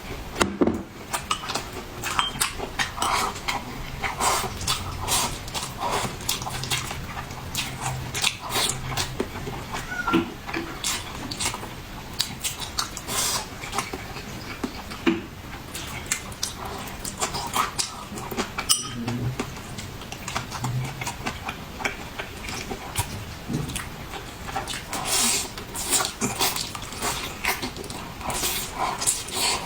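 Eating at a dinner table: irregular chewing and small clicks and clinks of utensils against dishes.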